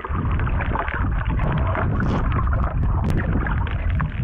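Muffled rumble and churning of seawater heard by an action camera just under the surface while snorkeling, with scattered sharp clicks of bubbles and water against the housing.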